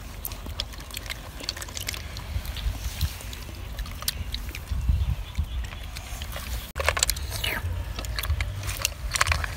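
Cooked snails being handled and sucked from their shells: scattered small clicks and slurps over a steady low rumble.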